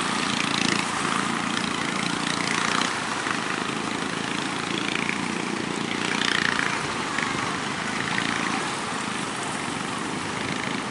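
The small engine of an outrigger fishing boat running as it pushes through surf, over a steady wash of breaking waves and wind, with a few louder swells of surf.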